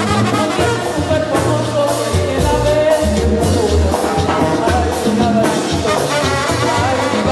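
Live band music with trumpets and trombone, a bass line and a steady beat, and a woman singing over it.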